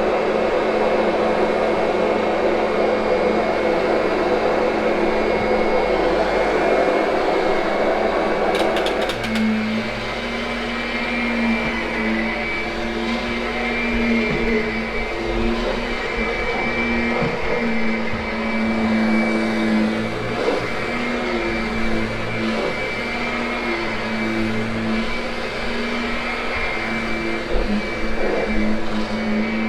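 Kirby upright vacuum running steadily over carpet, grooming it after cleaning, with a steady motor whine. About nine seconds in its lower sound changes, and from then on it swells and dips repeatedly as it is pushed back and forth.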